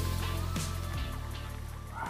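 Background music with a steady bass line, slowly getting quieter as it fades out.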